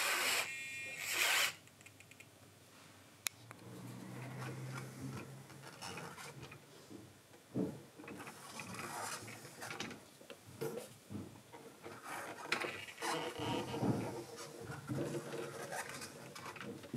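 Packaging and parts being handled during an unboxing: uneven rustling, rubbing and small clicks, opening with two short rasping bursts.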